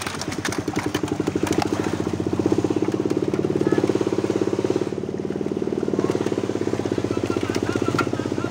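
A small engine running steadily with a fast, even putter, swelling a little a couple of seconds in, with scattered splashes from fish thrashing in the net.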